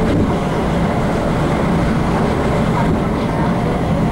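MTR K-Train (Hyundai Rotem electric multiple unit) running between stations, heard from inside the car: a steady, even rumble of wheels on rail and running noise.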